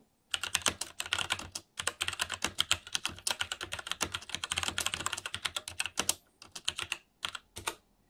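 Fast typing on a JamesDonkey 619 mechanical keyboard with Gateron brown switches: a quick run of key clacks with a short pause about a second and a half in. The strokes thin out to a few scattered presses near the end.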